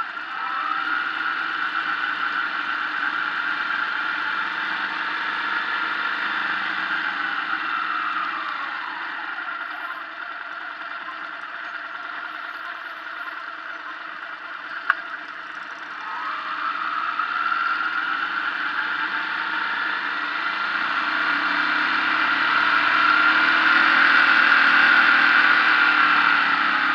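Motorcycle engine running under way, with wind noise. Its pitch falls and rises as it slows for bends and pulls away again, growing louder from about two-thirds of the way in. A single sharp click about halfway through.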